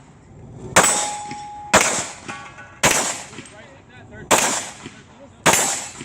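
Open-class competition pistol firing five single shots, roughly a second apart, each a sharp crack that trails off. After the first shot there is a brief metallic ring, as of a struck steel target.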